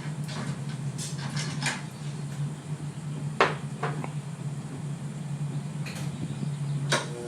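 Scattered light clinks and knocks over a steady low hum.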